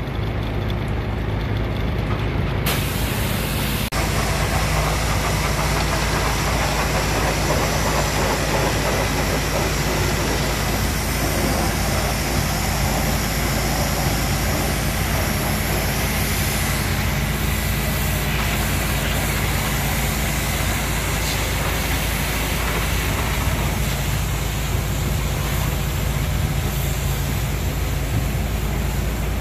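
High-pressure water gun spraying a concrete mixer truck: a steady hiss of the jet over an engine running steadily underneath. The hiss fills in about three seconds in.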